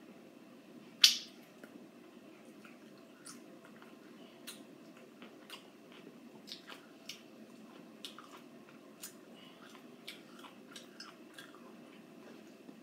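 A person biting and chewing a lime, with wet mouth clicks and smacks every half second or so and one sharp, much louder click about a second in.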